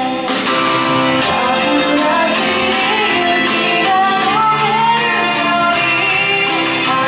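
A woman singing a pop song live into a handheld microphone over an instrumental backing, the sung melody gliding and held over steady accompaniment.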